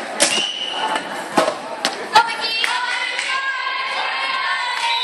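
A volleyball struck about four times in the first two seconds, sharp thuds in a large gym. Then from about halfway through, girls' voices shouting and cheering together.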